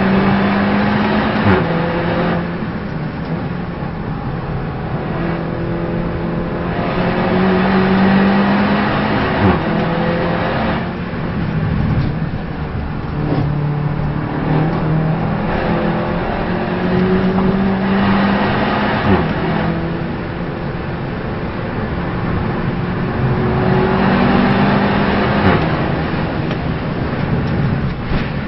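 Race car engine under hard acceleration, its pitch climbing through each gear and dropping sharply at several gear changes.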